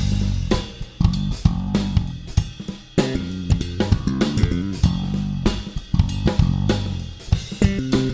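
Drum kit fitted with Arborea Knight series cymbals, played as a steady groove of kick, snare and cymbal hits over a backing track with bass guitar and guitar.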